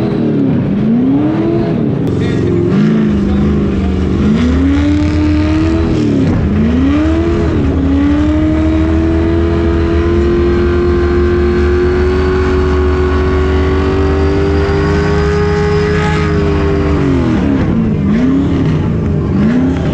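Burnout car's engine revved in a series of quick blips, then held at high revs for about eight seconds while the rear tyres spin and smoke. It then drops back to a few more quick blips near the end.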